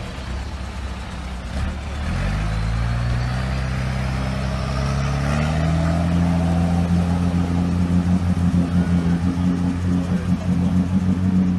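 Off-road vehicle's engine revving up in two steps, then held at high revs with a rapid pulsing in the sound through the last few seconds.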